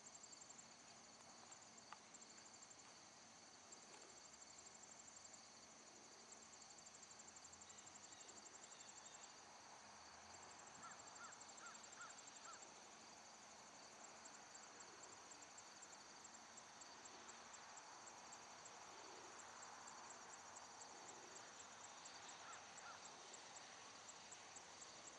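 Faint, high-pitched insect trills, such as field crickets, starting and stopping in stretches of a few seconds, over quiet open-air ambience. A brief run of four or five short chirps comes about halfway through, and two more near the end.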